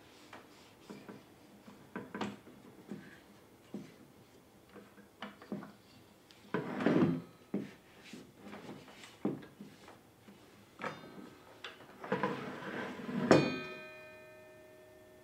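Handling noises from a circular saw being wiped down: scattered light knocks and clicks and two stretches of rubbing. Near the end comes a sharp metallic clank that rings on with a clear tone and fades slowly.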